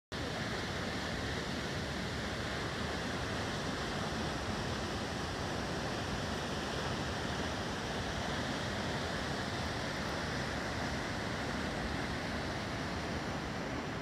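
A tall plunge waterfall falling into its rock canyon: a steady, unbroken rush of falling water.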